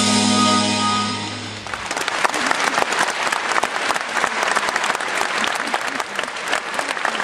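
A band's last held chord rings on and dies away about a second and a half in, then the audience breaks into steady applause.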